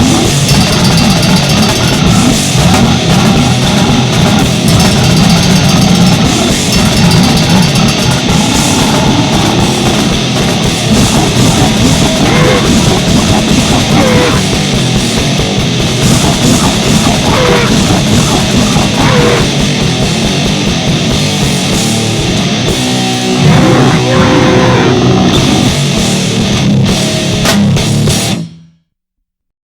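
Loud heavy rock music with distorted guitar and a drum kit, cutting off abruptly near the end.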